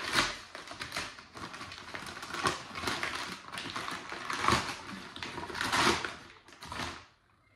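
Brown paper packaging being handled and torn open: a run of crinkling, rustling and sharp crackles that dies away near the end.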